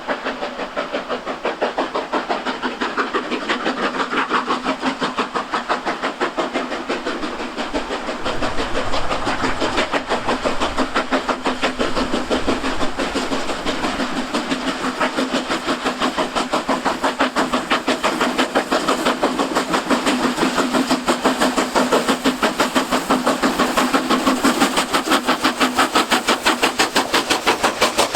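Steam locomotive working hard, its exhaust beating in a rapid, even rhythm with steady steam hiss.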